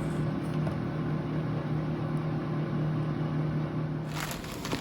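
Steady low machine hum, like a running kitchen appliance, that stops about four seconds in as a rustling noise begins.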